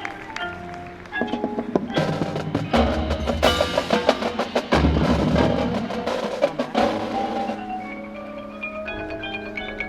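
Marching band playing its show music, with mallet percussion and held band chords; a loud full-band passage with heavy low end swells in a few seconds in, then eases off near the end to quieter, stepping mallet notes over sustained tones.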